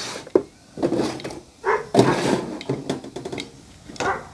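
Wire mesh cooking trays of a Chefman air fryer oven being slid out along their metal rails, giving a series of separate metal scrapes and clinks.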